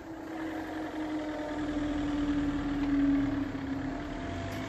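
Hydraulic power pack of Smiths Industries level-crossing barriers humming steadily as it raises the barriers, its pitch sinking slowly; it stops near the end. A car's engine pulls away and crosses the tracks, loudest about three seconds in.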